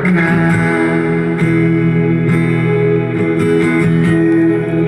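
Instrumental passage of a Tagalog pop song, guitar strumming over sustained notes, played through a DIY TDA2003 stereo amplifier.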